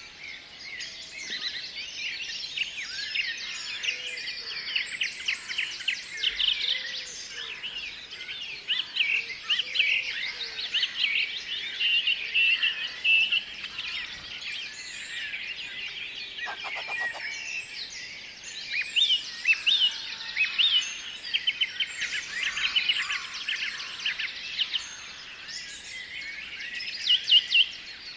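A chorus of songbirds, several birds overlapping with quick chirps, trills and whistled phrases throughout.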